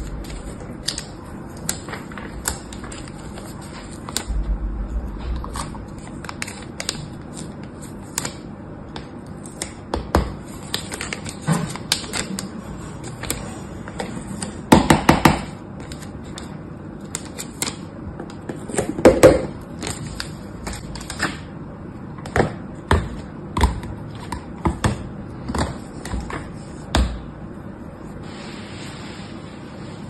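Hands handling small plastic slime tubs and their paper labels, making scattered light clicks, taps and rustles. There is a quick cluster of taps about halfway through and another a few seconds later.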